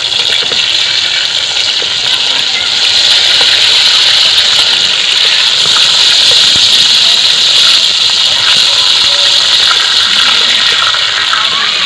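Round eggplant slices frying in hot oil in a kadai: a loud, steady sizzle as they are turned with a metal spatula.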